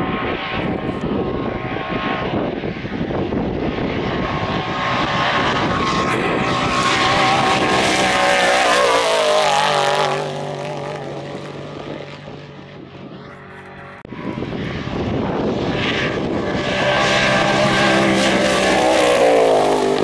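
Two Trophy Truck off-road race trucks pass one after the other at high speed, each engine running hard and loud. The first truck's engine note falls in pitch as it goes by about halfway through and fades, then the second truck arrives suddenly and its note drops the same way near the end.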